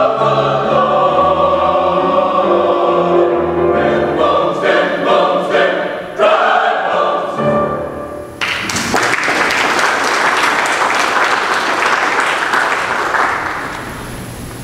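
Mixed choir singing with piano accompaniment, the piece closing a little over halfway through. It is followed by several seconds of applause from the congregation, which fades out near the end.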